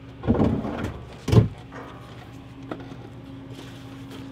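Things being handled and lifted out of a car's boot: a short rustling clatter, then one sharp knock about a second in, and a faint click later.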